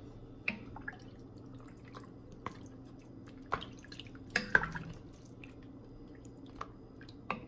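Scattered water drips and small clicks, irregular at about one a second with the loudest pair about four and a half seconds in, over a faint steady hum: water dripping into a pot of chicken feet just filled with water.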